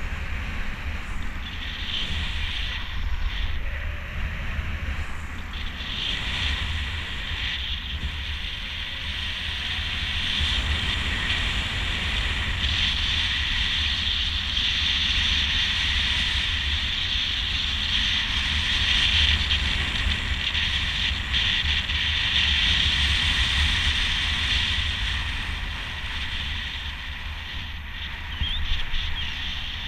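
Rushing air buffeting a camera microphone as a miniwing flies: a deep rumble under a hissing rush that gets louder through the middle and eases near the end.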